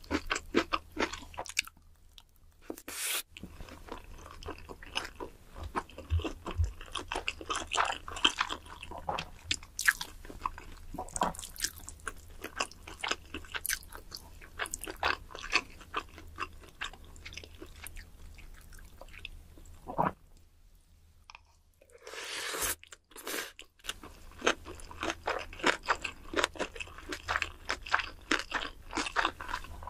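Close-miked eating: wet chewing and crisp crunching of food in quick succession, with a quiet pause of a couple of seconds about two-thirds through.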